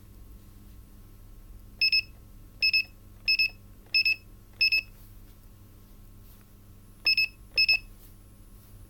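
Electronic beeping: five short high-pitched beeps about two-thirds of a second apart, a pause of about two seconds, then two more, over a faint steady hum.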